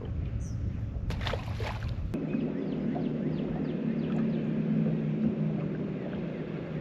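A low rumble cuts off about two seconds in, and a steady low hum from a boat's electric trolling motor takes over and runs on.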